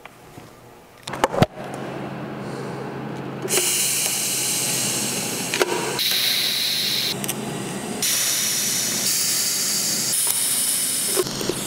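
TIG welding arc hissing as a steel pipe nipple is tacked to a flat-bar paddle, starting about three and a half seconds in and changing in level every second or two. A couple of sharp knocks come about a second in, before the arc starts.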